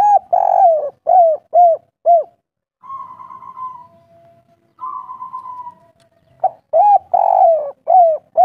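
Spotted dove (tekukur) cooing in the 'kuk 3' style: a quick phrase of short, falling coos with one longer drawn-out note, then two quieter rolling purrs, then another phrase of coos near the end.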